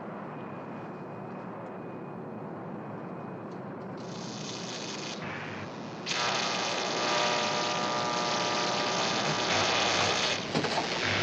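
Steady drone inside a jet aircraft's cabin. About four seconds in, a hissing rush starts, and from about six seconds a louder, harsh hiss with a steady buzzing tone in it fills the cabin: the sound of a fire breaking out aboard.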